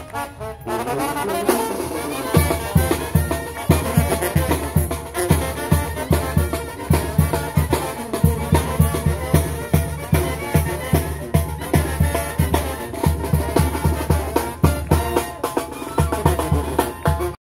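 Mexican banda-style brass band playing live: trumpets and trombones over a tuba, with snare and bass drum keeping a strong marching beat that comes in about two seconds in. The music cuts off abruptly near the end.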